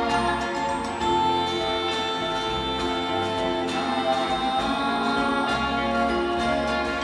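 Orchestra playing with voices singing; long held notes over a steady pulsing bass.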